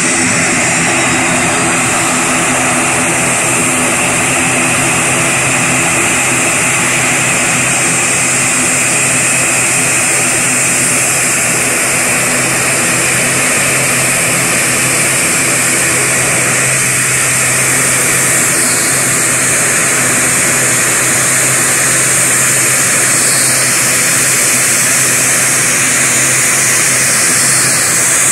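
The twin turboprop engines of an ATR airliner running at taxi power. A steady propeller drone sits under a high turbine whine and hiss, growing slightly louder near the end.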